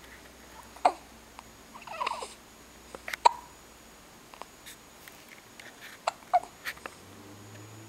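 A series of hiccups: short, sharp sounds, one about a second in, two close together a little past the middle, and three in quick succession near the end, with a brief voiced sound around two seconds in.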